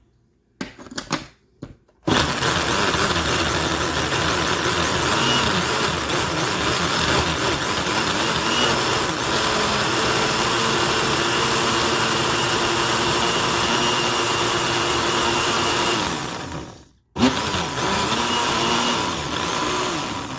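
Countertop blender puréeing green onions, garlic and peppers into epis seasoning: a few clicks as it is started, then a steady run for about fourteen seconds, a brief stop, and a second short run near the end.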